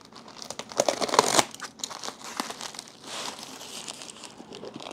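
Plastic mailer packaging crinkling and crackling irregularly as it is handled and slit open with a utility knife.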